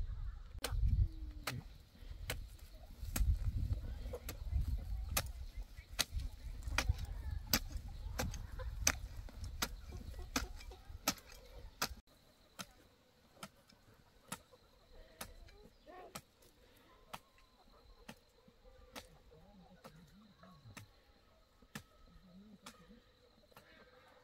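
Sharp knocks repeated at a steady pace, about two or three a second. A low rumble comes with them at first and drops away suddenly about halfway through, after which the knocks go on more faintly.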